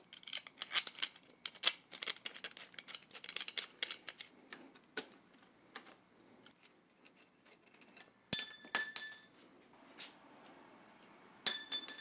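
Small metal hardware being handled: a handguard bolt and bar-end parts click and tick against each other and the handlebar. Twice, about eight and eleven and a half seconds in, a small metal piece is dropped and lands with a clink that rings on for about a second.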